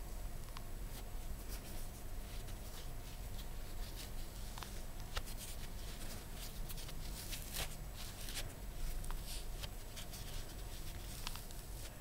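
A cotton pad rubbing and wiping over a silicone pimple-popping practice pad, giving a soft scratchy rustle with scattered small clicks.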